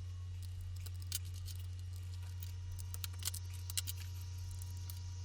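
A steady low hum with scattered faint sharp clicks and ticks.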